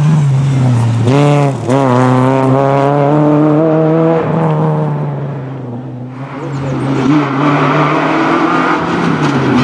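Renault Clio I rally car's four-cylinder engine at high revs, with a quick dip in pitch about a second in that fits an upshift. It pulls hard to about four seconds, fades away, then builds again near the end as the car comes back at speed.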